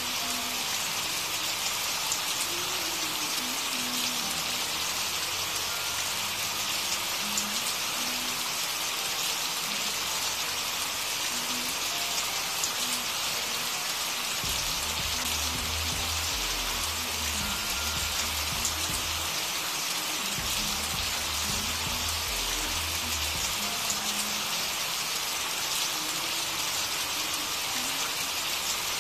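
Steady recorded rain, an even hiss of many drops. A run of low bass notes sounds under it for several seconds in the middle.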